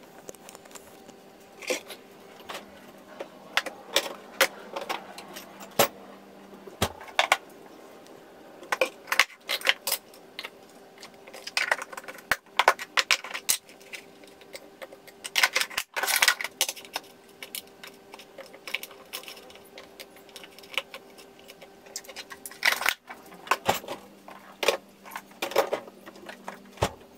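Plastic food containers, lids and a bottle being handled and set down on a kitchen benchtop: scattered clicks, knocks and clatters in short clusters with pauses, over a faint steady hum.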